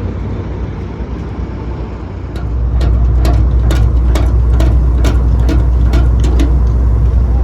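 A heavy engine comes on about two and a half seconds in and runs steadily with a strong low drone, over irregular sharp clicks.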